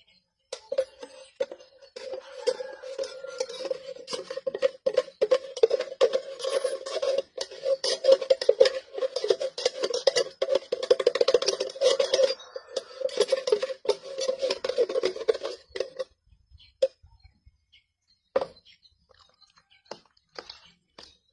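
Spoon stirring a thick, creamy buko salad in a plastic tub, scraping and clattering against the container's sides and bottom. It makes a dense run of rapid scrapes for about fifteen seconds, then stops, with a couple of single knocks afterwards.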